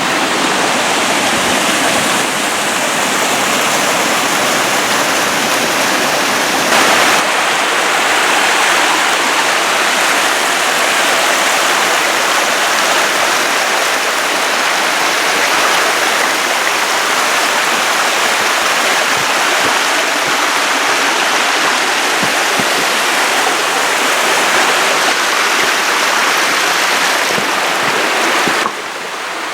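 Steady rushing of a rain-swollen canyon creek running over rocks. The level dips slightly near the end.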